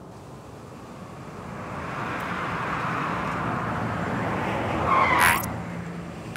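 Car traffic sound effects: engine hum and road noise growing louder over several seconds, then a short, loud tire screech about five seconds in.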